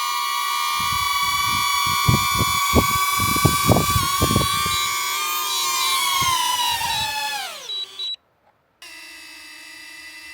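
DJI quadcopter drone's propellers whining with several steady tones, with low gusty thumps of prop wash hitting the microphone. Near the end the motors spin down in a falling whine and stop, as at landing; after a brief gap another drone's steady whine starts, quieter.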